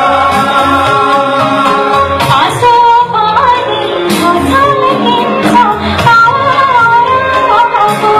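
A woman singing into a microphone over instrumental backing music, her voice entering a couple of seconds in.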